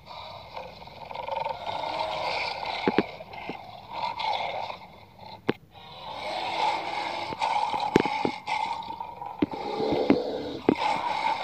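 Toy lion and black bear animal figures scraping and rustling against artificial grass as they are pushed and tumbled over each other, with a scattering of sharp clicks where the figures knock together or hit the turf.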